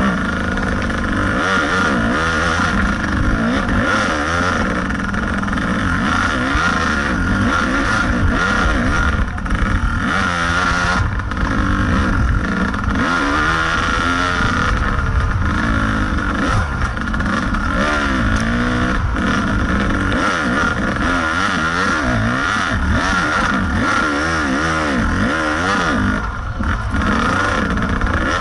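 Kawasaki KDX 220 two-stroke single-cylinder dirt bike engine heard from on the bike, revving up and down continually as it is ridden over rough trail.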